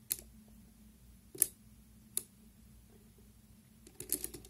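Soroban (Japanese abacus) beads clicking as a finger flicks them along their rods: a few separate sharp clicks, then a quick run of several clicks near the end.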